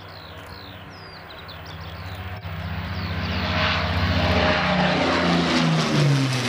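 De Havilland Mosquito's twin Rolls-Royce Merlin V12 piston engines running as the aircraft flies low overhead, growing louder and then falling in pitch as it passes. Small birds chirp faintly in the first couple of seconds.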